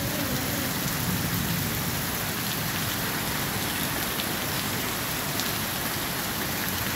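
Heavy rain pouring down steadily, an even hiss of rain falling on the wet street and paving.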